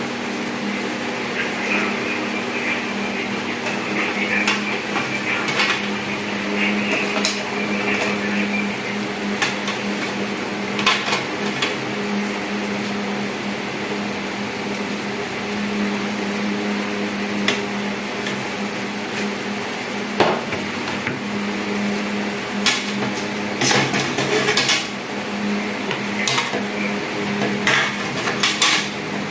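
Scattered clinks and knocks of feeding bottle parts, tongs and utensils being handled in a sterilizer pot, over a steady hum.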